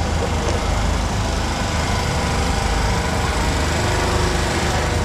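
A steady engine-like drone that runs on evenly with no change in pitch.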